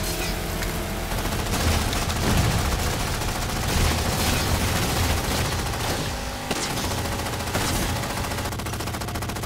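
Shooter video game's gunfire sound track: dense, rapid automatic fire with no let-up.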